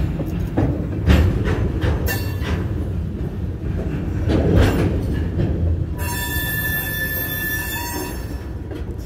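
Freight train of covered hopper cars rolling past: a steady low rumble of steel wheels on rail with a few heavy clunks. About six seconds in, a high metallic squeal from the cars is held for about two seconds.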